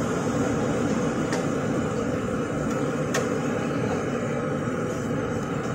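Pakoras deep-frying in a large iron kadai of hot oil: a loud, steady sizzle and bubbling of the oil.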